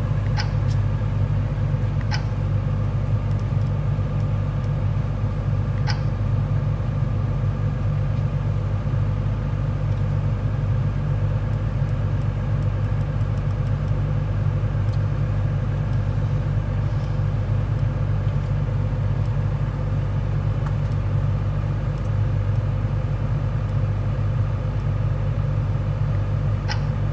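Excavator diesel engine running at a steady idle, heard from inside the cab as an even low drone. A few light clicks sound over it, from the buttons on the cab monitor's keypad being pressed.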